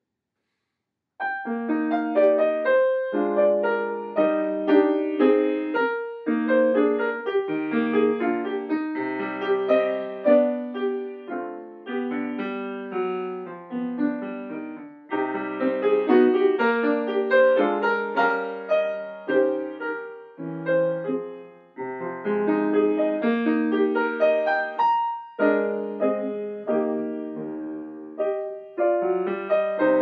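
A grand piano played solo, starting about a second in: a classical piece of chords under a moving melody, with a couple of short breaks between phrases.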